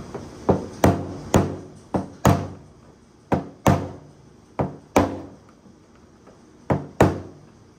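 Hammer striking a screwdriver set against the metal lock ring of a fuel tank's sending unit, driving the ring around to seal the unit into the tank. About eleven sharp metallic taps, mostly in quick pairs, each ringing briefly.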